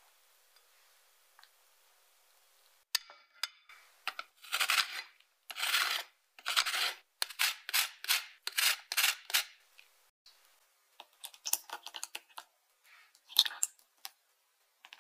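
Lemon peel being grated over the bowl: a run of scraping strokes, about two a second, from a few seconds in to about the middle, followed by lighter, scattered scratches.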